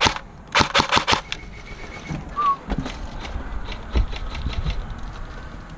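AK-style airsoft rifle firing a short rapid burst of about six shots, a little over half a second in, followed by a few dull low thumps.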